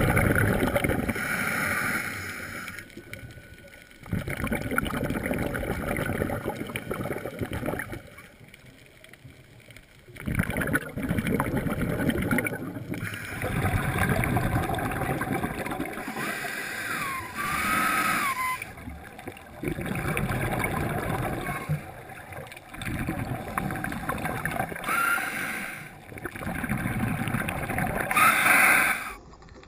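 Scuba breathing heard underwater: gurgling bubble noise in bursts of a few seconds, broken by short quieter gaps, in the rhythm of a diver's breaths through a regulator.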